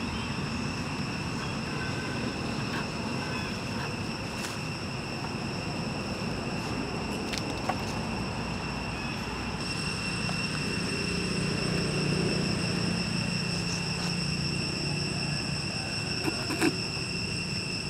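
Insects calling as a steady, high-pitched drone that grows louder about ten seconds in, over a low outdoor background hum, with a few faint clicks.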